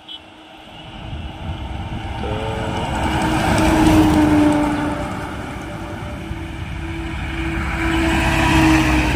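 Trucks passing close on a highway. A heavy lorry's engine and tyres grow to a peak about four seconds in and fade, then a mini truck passes near the end, bringing a second rise in loudness.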